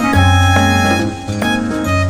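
Background music with a bass line and plucked or keyboard melody notes.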